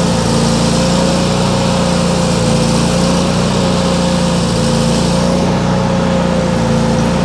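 Gasoline engine of a Miller Bobcat engine-driven welder-generator running at a steady speed, a constant loud drone with a steady whine on top.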